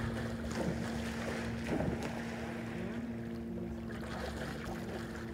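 Steady drone of a distant motorboat engine, with wind noise on the microphone.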